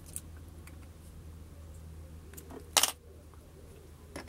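Small metal clicks from a steel shaft coupling and hex key being handled as the coupling's grub screw is tightened on the bit, with a short sharp clack about two thirds of the way through and a smaller one near the end, over a low steady hum.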